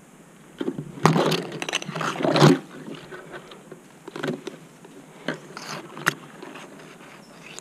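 Close scraping and rustling from a tree climber's gear, rope and branches as he shifts position, loudest for about a second and a half, followed by a few scattered clicks and knocks of metal climbing hardware.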